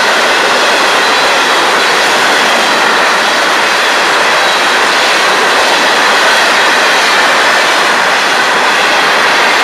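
Steel hopper cars of a long freight train rolling past close by: a loud, steady noise of wheels running on the rails.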